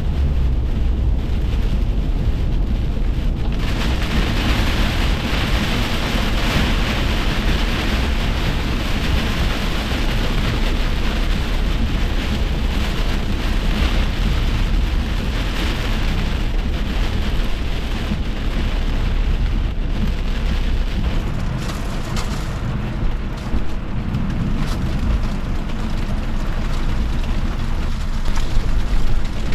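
Rain falling, an even hiss that swells about four seconds in and eases off after about twenty seconds, over a steady low rumble.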